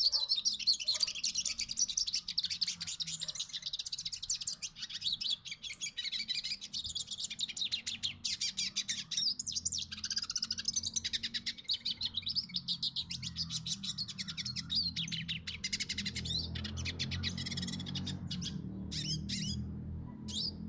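Male hooded siskin (cabecita negra) in full song: a long, fast, high twittering run of rapid trills and chirps with short breaks. A low steady hum comes in during the last few seconds.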